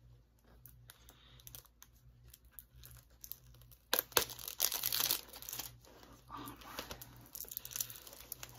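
Plastic packaging being torn and crinkled off a DVD set, with small clicks and handling noise; the tearing is loudest from about four to five seconds in.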